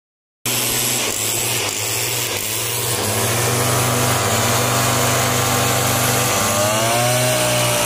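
Backpack mist-blower sprayer's small two-stroke engine running steadily at constant speed, its note shifting slightly near the end.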